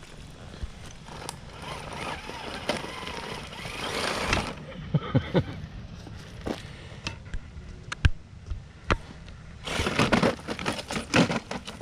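Traxxas TRX-4 RC crawler working over loose rocks: tires scrabbling, with irregular knocks and clatter of stones, loudest near the end.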